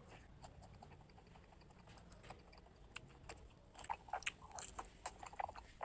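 Mac and cheese being chewed: soft, wet mouth clicks and smacks that are faint at first and grow into a busier run of sharper clicks about two-thirds of the way through.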